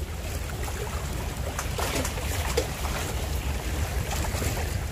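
Wind buffeting the microphone as a low, unsteady rumble, with small waves lapping and splashing against the shoreline rocks.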